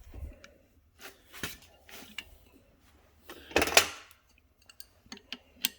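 Metal clinks and scrapes of brass hose fittings and a wrench being handled while the oxygen and acetylene hose nuts are threaded onto a cutting torch. There is a string of short clicks, with a louder, longer scraping rustle about three and a half seconds in.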